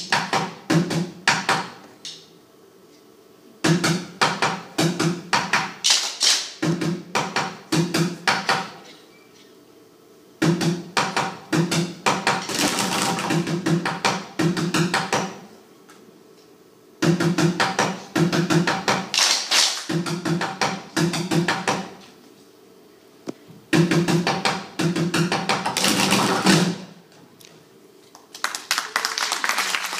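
A group of boys drumming in unison on upturned plastic buckets, fast rhythmic patterns of sharp strokes. The playing comes in phrases of a few seconds, broken by short silences.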